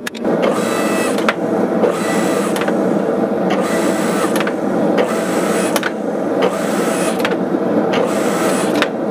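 Shop-made forging tool with flat steel dies running with a steady mechanical clatter while hot rebar sits between the dies, with a sharp click roughly once a second.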